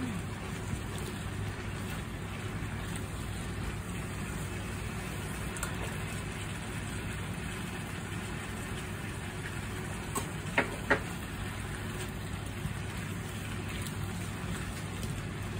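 Choi sum sizzling as it stir-fries in a pan: a steady frying hiss over a low hum, with two sharp clicks of the spatula against the pan about two-thirds of the way through.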